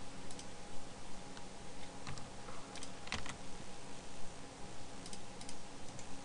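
A few scattered computer keyboard keystrokes and clicks, each short and sharp, over a steady faint hum.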